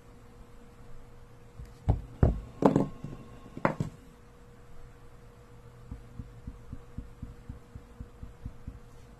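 A few sharp knocks and clicks about two to four seconds in, then a Pilot chisel-tip marker tapped again and again onto a white board as it dabs short marks, about three soft taps a second, over a faint steady hum.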